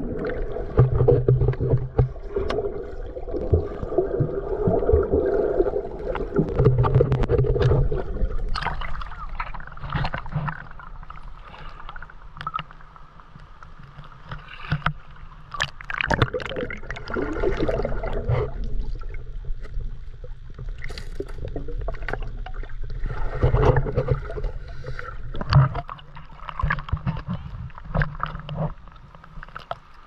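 River water heard through a GoPro held underwater: a muffled gurgling rumble with scattered sharp clicks and knocks.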